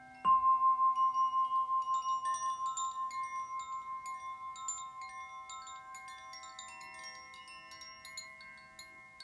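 Crystal singing bowl struck once, ringing a clear tone with a wavering pulse that slowly fades. Throughout, the high tinkling of a Shanti chime runs over other softly lingering crystal tones.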